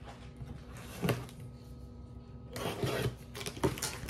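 Cardboard shipping box being handled and its flaps opened: a knock about a second in, a stretch of scraping and rustling past the middle, and a few light clicks near the end, over a faint steady electrical hum.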